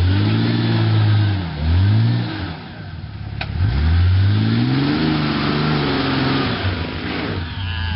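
Jeep Cherokee XJ engine revving in repeated surges, rising and falling in pitch, as it pulls through deep mud ruts. It drops off briefly about three seconds in before a longer rev.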